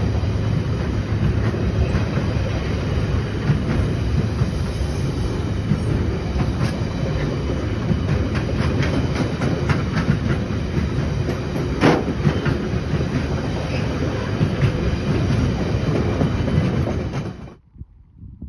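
Loaded timber wagons of a freight train rolling past close by: a steady rumble of wheels on rail with a run of clicks and knocks, one sharper clank about twelve seconds in. The sound cuts off abruptly near the end.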